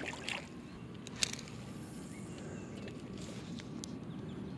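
A small bluegill splashing back into shallow water as it is released, then a single sharp click about a second later, over a steady low outdoor background.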